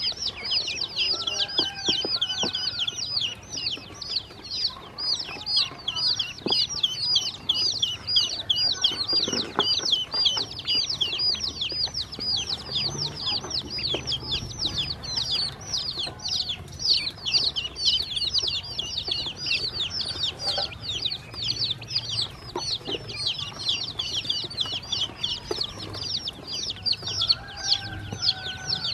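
A group of baby chicks and ducklings peeping nonstop: many overlapping high-pitched peeps, each falling in pitch, with a few faint clicks beneath.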